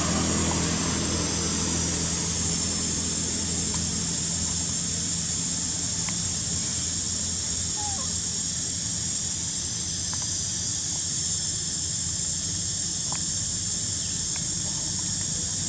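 Steady high-pitched drone of an insect chorus over a low, steady background hum, with a few faint ticks.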